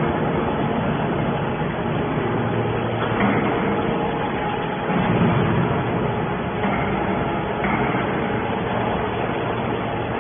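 Hydraulic scrap metal baler running: a steady machine hum with a few short louder surges along the way.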